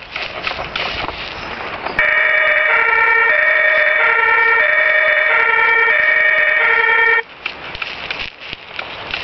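Toy fire engine's electronic two-tone siren, switching on abruptly about two seconds in, alternating high and low notes about once a second, then cutting off suddenly some five seconds later. A rustling, crackling noise is heard before and after it.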